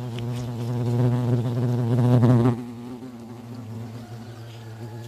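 Hornets buzzing around their nest: a low, steady buzz with several overtones, loud while one hovers close by, then dropping about two and a half seconds in to the fainter buzz of the others.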